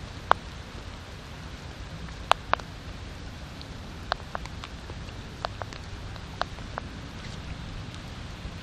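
Steady rain falling, with a dozen or so sharp taps of single heavy drops at irregular moments.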